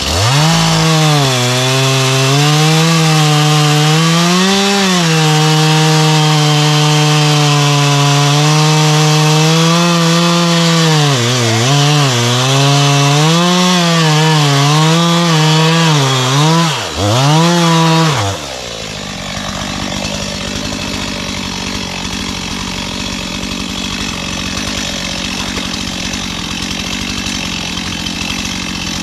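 Stihl two-stroke chainsaw cutting at high revs, its pitch sagging and recovering repeatedly as the chain bites into the wood. About 18 seconds in the revs drop abruptly, and the saw keeps running at a lower, steady idle.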